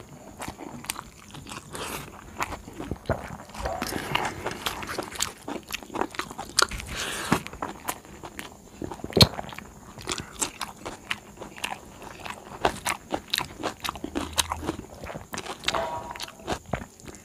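Close-up eating sounds: chewing and crunching mixed with many sharp, irregular clicks and crackles as fingers mix rice on a steel plate. The loudest click comes about halfway through.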